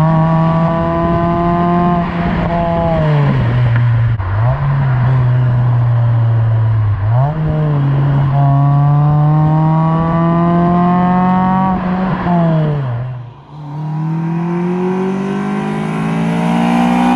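Honda Accord Euro CL9's 2.4-litre four-cylinder engine through an Invidia Q300 cat-back exhaust, accelerating through the gears. The engine note climbs steadily in each gear, drops sharply at each of several gear changes, and climbs again near the end.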